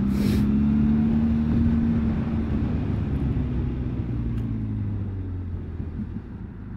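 Benelli TRK 502X's parallel-twin engine pulling away after a stop: its note holds steady under throttle for about two seconds, then slowly drops in pitch and level as the throttle eases off.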